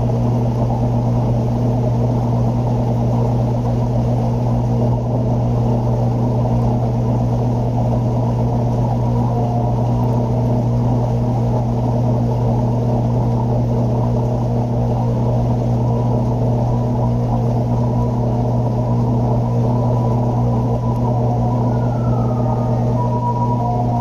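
Steady low hum of running aquarium equipment, unchanging throughout, with a few faint short tones near the end.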